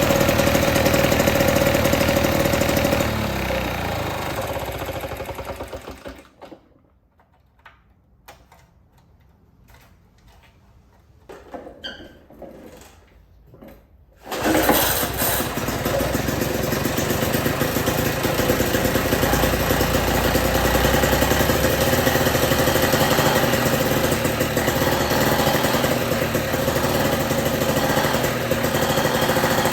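1955 Lawn-Boy 8F20 two-stroke mower engine running, then fading and dying out a few seconds in. After several quiet seconds with a few faint small noises, it is suddenly running again and keeps running steadily.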